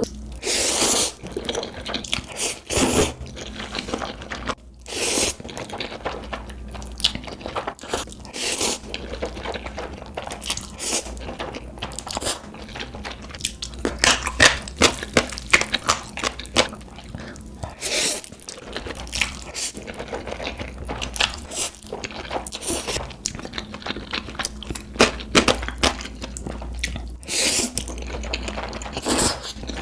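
Eating sounds: crunchy bites and chewing in irregular, sharp bursts.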